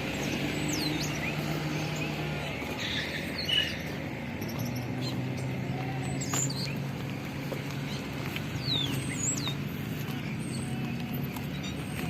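A vehicle's engine running with a steady low hum under road or wind noise, while birds give short high chirps several times over it.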